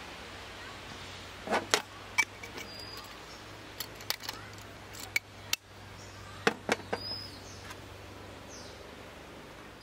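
Sharp clicks and light knocks from handling pour-over coffee gear, a paper filter in a folding dripper over a steel mug, in clusters about a second and a half, four, and six and a half seconds in. Steady outdoor background with a couple of short high bird chirps.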